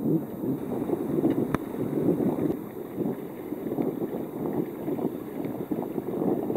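Wind buffeting the microphone: a rough, gusting rumble that rises and falls every second or so, with no engine tone.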